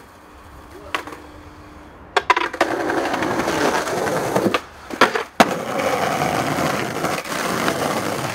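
Skateboard wheels rolling over rough asphalt, with sharp clacks of the board about two seconds in and two loud hits about five seconds in.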